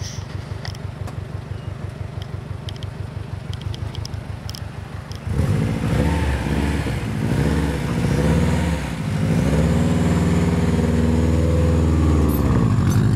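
Subaru Impreza's flat-four boxer engine idling with a steady pulse. About five seconds in it is revved up and down several times, then held at higher revs for a few seconds before dropping back near the end.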